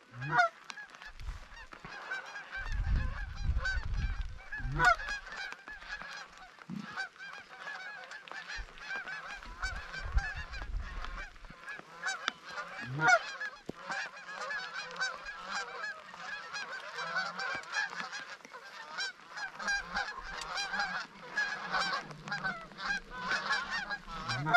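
A flock of Canada geese honking and clucking continuously, many overlapping calls, with low rumbles a few seconds in and again around ten seconds in.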